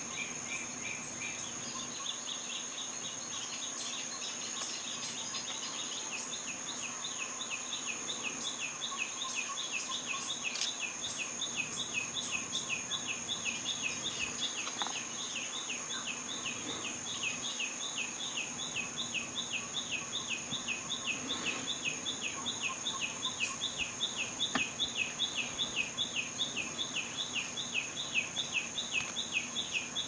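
Insect chirping in a steady rhythm, about three chirps a second, over a constant high whine, with a few faint clicks.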